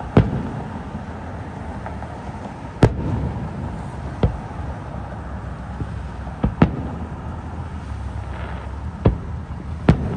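Aerial fireworks shells bursting: about seven sharp booms at irregular intervals, two of them close together a little past the middle, each trailing off in a low rumble of echo.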